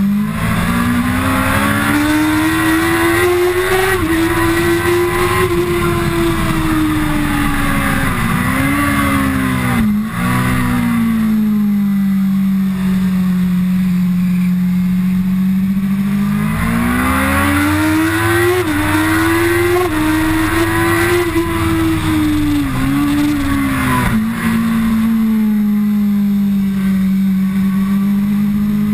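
Kawasaki ZX-10R sport bike's inline-four engine heard from on board at track speed, over a constant rush of wind. The engine note climbs twice under hard acceleration, then drops back with short blips as it is shifted down for the braking zones. It holds steady through long stretches between.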